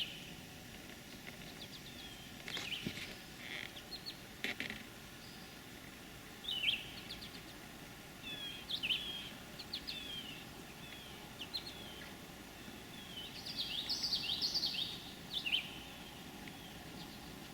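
A songbird singing in short phrases of quick down-slurred notes, repeated several times, over a faint outdoor hiss, with a few soft clicks.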